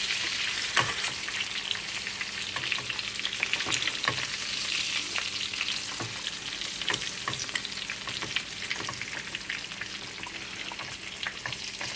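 Egg-battered chicken cutlets sizzling and crackling steadily in a buttered frying pan, with a few sharp clicks as they are turned over with a fork.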